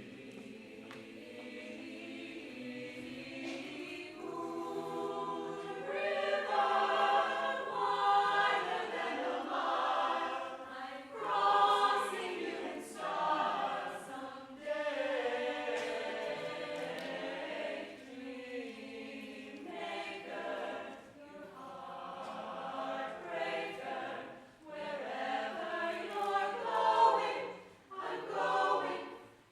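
Vocal group singing a cappella, soft at first and growing louder about five seconds in, then rising and falling with the phrases.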